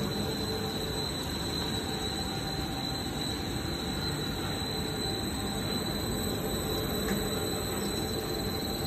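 PVC fibre-braided hose production line running: a steady machinery noise with a constant high-pitched whine over it.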